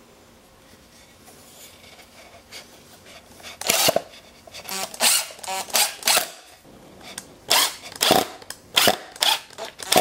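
Power drill with a screwdriver bit driving wood screws through a plywood base into a pine block, run in many short bursts of a fraction of a second each, starting about three and a half seconds in.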